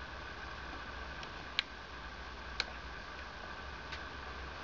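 A few short, sharp clicks, roughly a second apart, from a multimeter's metal test probe being handled against a battery pack's contacts, over a steady background hum.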